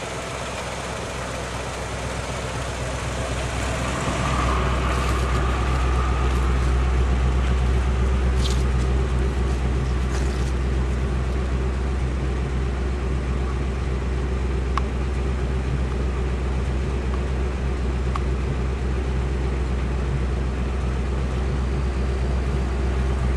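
1955 Chevrolet 6100 tow truck's engine idling steadily with its hood up. The idle gets louder about four seconds in.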